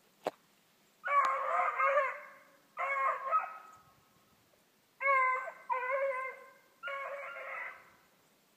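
Young beagle hounds baying while running a rabbit: a string of long, drawn-out bays, a first group about a second in and a second group starting about five seconds in.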